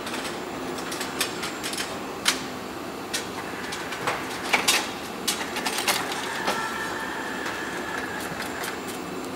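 Engine assembly line machinery: a steady mechanical hum with scattered sharp metallic clicks and clanks, and a thin high tone held for about two seconds past the middle.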